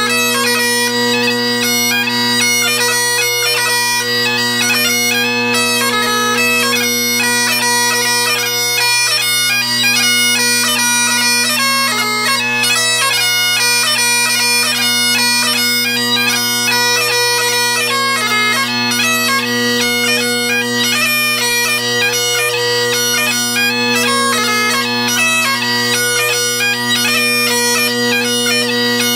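Great Highland bagpipe played solo: the drones hold one steady chord under a quick, constantly changing chanter melody.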